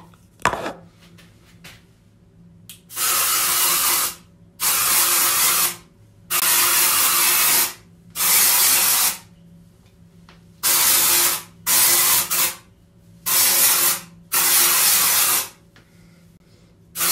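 Aerosol can of keratin dry shampoo sprayed onto hair in about eight hissing bursts of roughly a second each, with short pauses between them. A couple of clicks come near the start.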